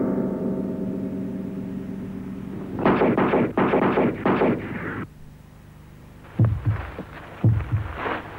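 A held musical chord fades away. About three seconds in, a burst of gunfire with rapid shots lasts about two seconds and cuts off sharply. From about six seconds on, low thumps come in pairs, about one pair a second.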